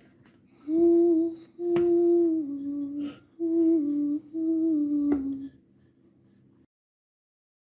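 A voice humming a short tune in four held phrases, each dropping a step near its end, with two light clicks over it.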